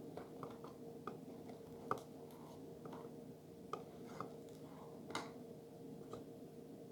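A person eating lasagna quietly: soft chewing with scattered small clicks, the loudest about two and five seconds in, over a faint steady hum.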